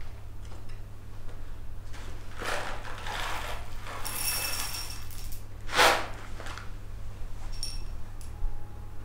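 Foil coffee-bean bag crinkling as it is handled and tipped, with beans rattling and clinking onto a small dish, and one louder rustle past the middle. A few light clinks near the end, over a steady low hum.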